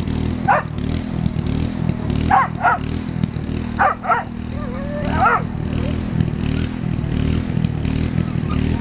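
A dog barking about six times in quick pairs during the first five seconds or so, over a steady low drone.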